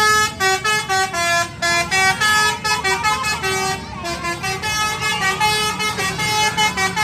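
A tour bus's 'basuri' telolet horn playing a melody: a quick run of clear horn notes that change pitch several times a second, with a brief break about four seconds in, over a low rumble.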